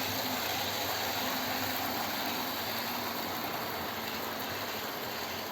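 OO gauge model train running along the layout's track, a steady hiss of wheels and motor that slowly grows quieter.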